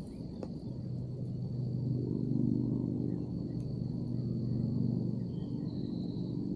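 Outdoor field ambience: an insect's steady high-pitched trill throughout, with the low hum of a distant engine coming in about two seconds in and holding steady.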